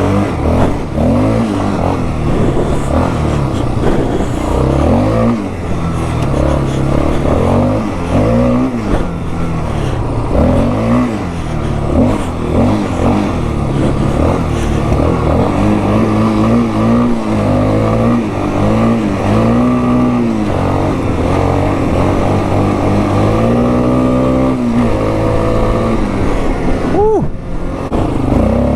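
Yamaha Warrior 350 ATV's single-cylinder four-stroke engine, on its stock exhaust, being ridden with the throttle worked on and off so the revs rise and fall again and again. Near the end it revs sharply up and then drops.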